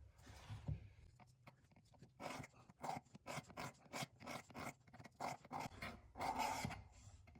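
Faint, rhythmic scraping strokes of a single-bevel steel broadhead drawn across the diamond file of a Work Sharp knife sharpener, starting about two seconds in at roughly two strokes a second, touching up the part of the edge still left unsharpened up high.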